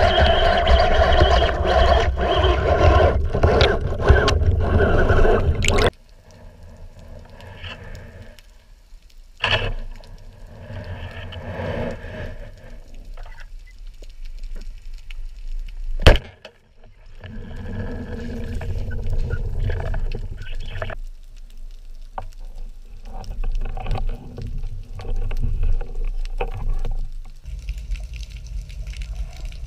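Water heard underwater: muffled, shifting water noise. A louder, denser stretch cuts off abruptly about six seconds in, and a single sharp snap comes about sixteen seconds in.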